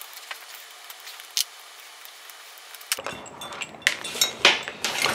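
Small bench vise being taken off its swivel base by hand: a few light metal clicks, then from about three seconds in a quick run of metal clinks and knocks as the loose parts are handled.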